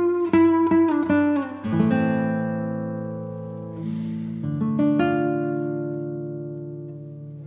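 Guitar music: a quick run of plucked notes, then chords left ringing and slowly fading, with a fresh strum about halfway through.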